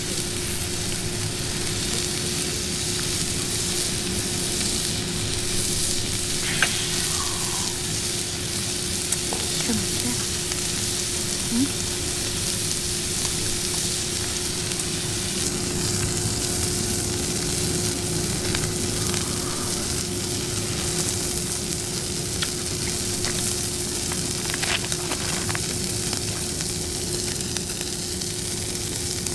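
Pork belly sizzling steadily in a frying pan, with a steady low hum underneath and a few light clicks.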